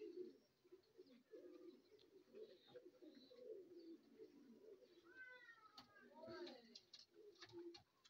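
Domestic pigeons cooing faintly, a run of low throaty coos one after another. About five seconds in, higher calls that rise and fall join them, with a few sharp clicks.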